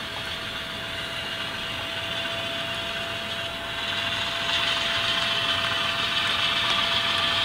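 HO scale model freight cars rolling along the track with a clicking, rattling run of wheels over rail, over the steady diesel rumble of an Alco C425's sound decoder. It grows louder about halfway through.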